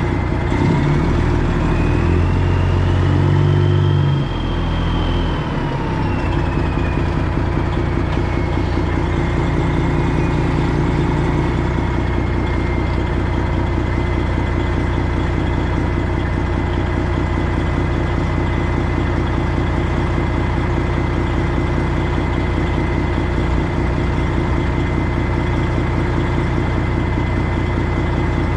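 Semi-truck diesel engine running at low speed, revving up for a few seconds at the start and then settling. A high whine rises and falls with the revs, then holds steady.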